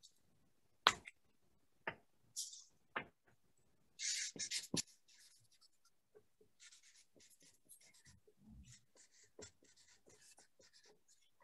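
Writing on paper: faint, short scratching strokes in quick succession, with scattered clicks and a louder rustle of paper about four seconds in.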